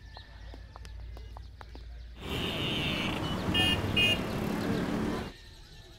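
City road traffic: a dense steady rush of passing vehicles with a couple of short car-horn toots, starting suddenly about two seconds in and cutting off abruptly near the end.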